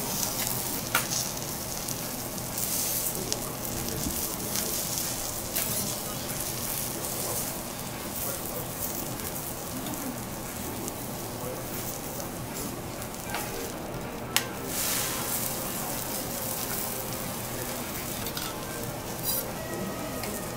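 Vegetables sizzling steadily on a hot teppanyaki steel griddle, with a few sharp clicks of a metal knife and carving fork against the steel, the sharpest about two-thirds of the way through.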